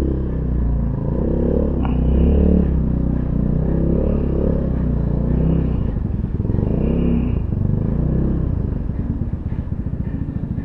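Yamaha Mio scooter engine running while ridden at low speed, its pitch rising and falling a little. It settles to a slow, even putter over the last couple of seconds.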